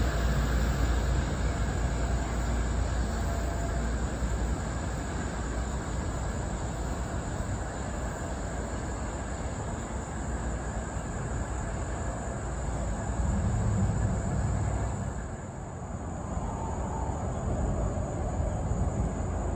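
NJ Transit train running past: a steady rumble and rail noise that gradually dies away.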